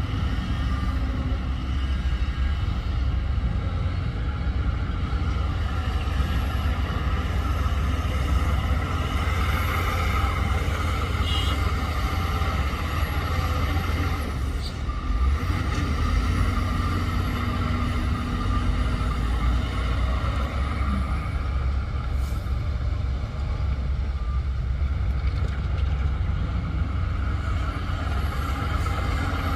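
Heavy diesel earthmoving machinery, a bulldozer and dump trucks, running steadily under load with a continuous low rumble.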